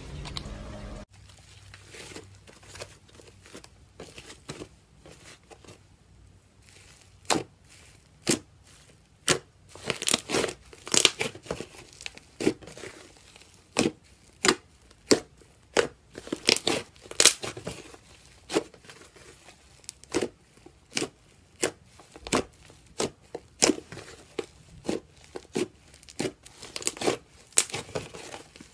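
Thick yellow slime being kneaded and pressed by hand, giving off irregular sharp pops and crackles, sparse at first and coming thick and fast from about seven seconds in.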